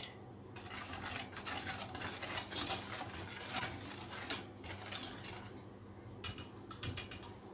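Wire whisk stirring a chocolate sauce in a stainless steel saucepan, its wires scraping and clicking against the pot's sides and bottom in quick, irregular strokes.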